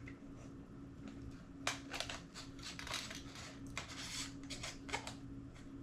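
Handling noise: a quick series of sharp clicks and rustles, as of hands working hard plastic parts, over a steady low hum.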